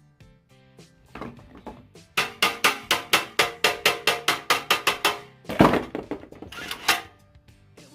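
Background music, with a fast even run of sharp clicks at about six a second, then two heavier knocks.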